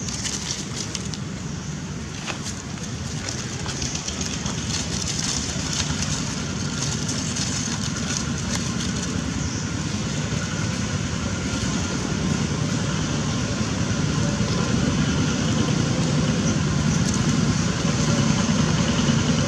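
A low, steady engine rumble that gets gradually louder toward the end.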